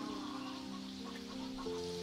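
Background instrumental music: a slow melody of held notes.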